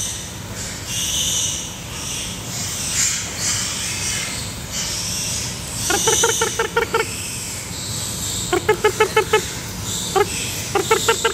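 An animal's rapid pulsed calls, about eight pulses a second, come in three short bursts over a steady background hum and hiss.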